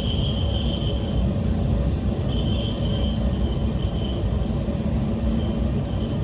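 Yamagata Railway Flower Nagai Line diesel railcar running along the track: a steady rumble of wheels and engine, with a high-pitched squeal that comes and goes in short spells.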